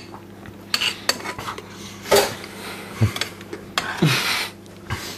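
Dishes and cutlery clattering: a string of separate clinks and short scrapes, about half a dozen over a few seconds.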